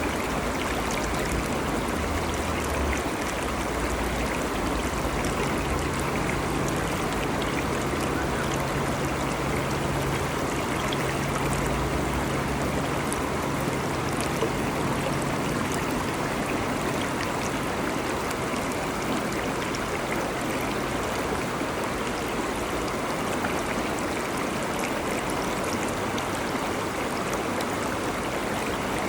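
Water of a stream flowing steadily, an even rushing and trickling.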